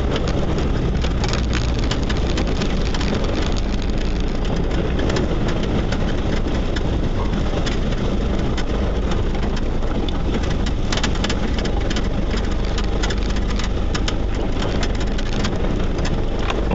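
Off-road vehicle driving slowly along a rough dirt track, heard from inside the cab: a steady low engine drone with tyre noise, and frequent knocks and rattles as it goes over the bumps, busiest in the second half.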